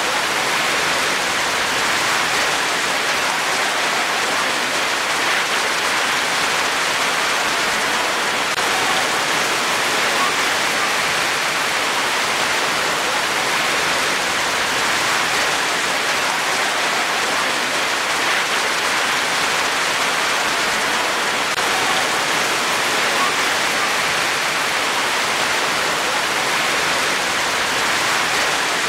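Steady rain falling, an even hiss with no separate drops or thunder standing out.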